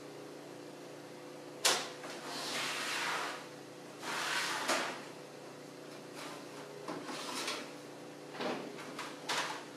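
Hands working metal parts in a steel computer case's drive bay as the hard drive's mounting screws are taken out. There is a sharp click about a second and a half in, then stretches of scraping and rattling with a few more clicks.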